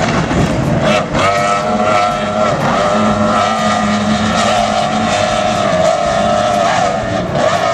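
Racing powerboat's outboard engines running flat out at a steady high pitch, with rushing noise under them; the pitch dips slightly a couple of times.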